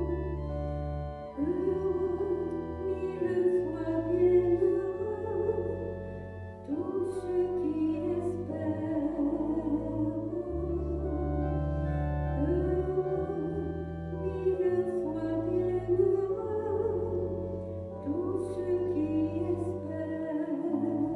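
A church hymn sung by a solo voice with vibrato in phrases of a few seconds, over sustained keyboard chords that change every few seconds. It is the offertory hymn during the preparation of the gifts at Mass.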